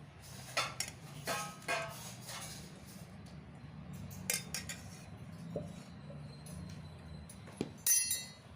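Cutlery and dishes clinking: a handful of light clinks with brief ringing, the loudest near the end, over a steady low hum.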